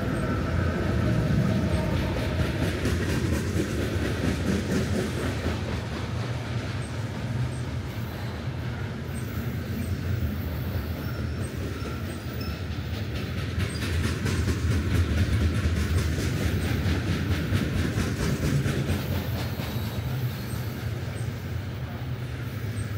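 Diesel freight locomotive passing close by with its engine rumbling, the tail of its horn fading out at the start, followed by loaded flatcars rolling past with a steady clicking of wheels over rail joints.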